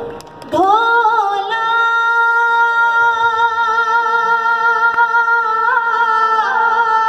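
A woman's voice singing a Punjabi folk song, sliding up onto one long held note with a slight waver and then moving to a new note near the end. A faint steady lower drone sounds underneath.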